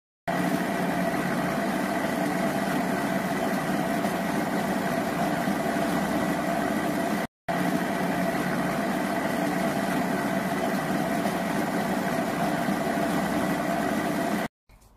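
Countertop blender motor running steadily, grinding soaked mung beans and rice in water into batter, with one short break about halfway.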